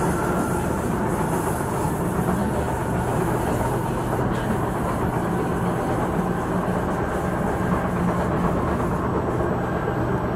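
Singapore MRT train running at speed, heard from inside the cabin: a steady rumble of wheels on rail with a low hum underneath.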